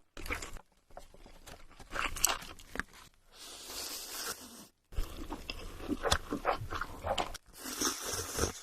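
Crunchy bites and chewing of food, in short pieces broken by abrupt cuts. There are two stretches of steady hiss, one about three and a half seconds in and one near the end.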